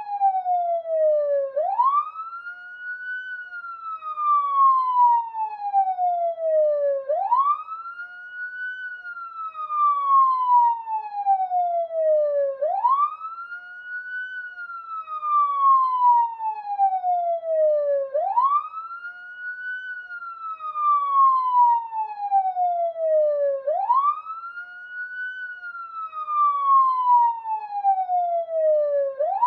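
Police siren wailing: each cycle rises quickly in pitch, then falls in a long slow glide, repeating about every five and a half seconds.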